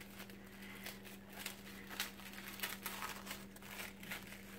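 Faint crinkling and rustling of packaging as a small wrapped item is unwrapped by hand, in a string of short crackles, over a steady low hum.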